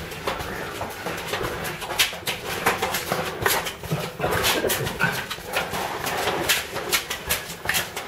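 Scuffing, knocking and rustling of people moving through a cramped, narrow tunnel, with irregular sharp clicks and knocks several times a second.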